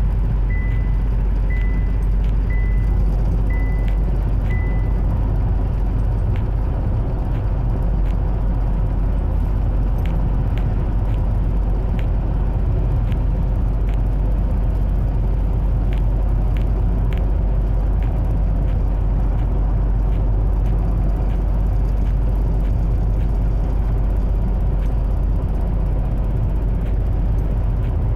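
Steady road and engine rumble inside a moving car's cabin at highway speed. Near the start there is a short run of about six evenly spaced high beeps, and faint scattered clicks follow later.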